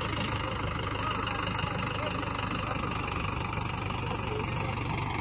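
Mahindra 475 DI XP Plus tractor's three-cylinder diesel engine running steadily at a low, even speed.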